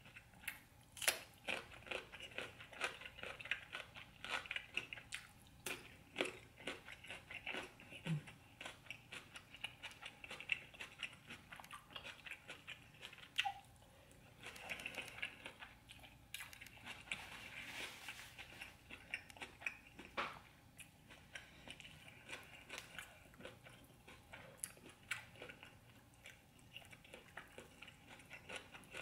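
Close-miked eating sounds: biting and crunching on cucumber slices and chewing food, a steady run of small irregular mouth clicks and crunches.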